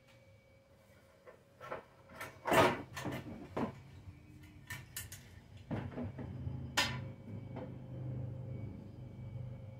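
Irregular clunks, clicks and rattles of hands working on a portable generator's plastic and metal parts, the loudest knock about two and a half seconds in. A faint low hum comes in about halfway through.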